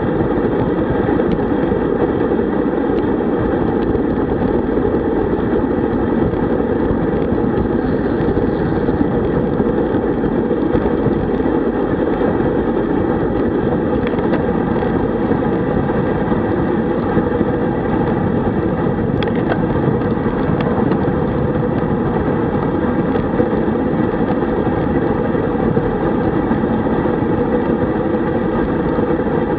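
Wind rushing over a bike-mounted camera's microphone on a road bike at about 37 km/h, a loud steady rumble with no change in level.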